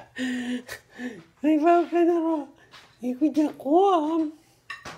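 A voice making drawn-out, sing-song sounds without words. Several notes are held for about a second each, with the pitch rising and falling, and there is a short click near the end.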